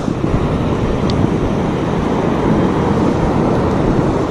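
Wind buffeting the microphone in a steady, loud low rumble, with surf breaking on the shore behind it.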